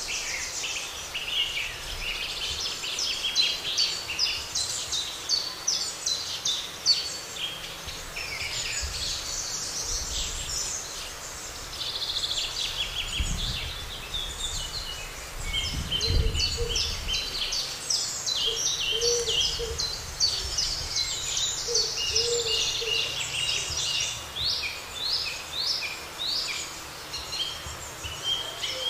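A chorus of birds singing together, with rapid, overlapping high chirps and trills throughout. A low rumble swells briefly about halfway through.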